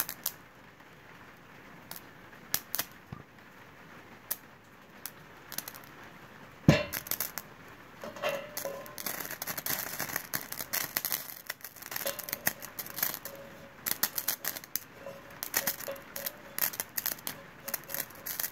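Burning ferrocerium chips crackling and snapping as they spit sparks. There is a single knock about seven seconds in, then denser crackling and scraping as a metal bar stirs the burning pile.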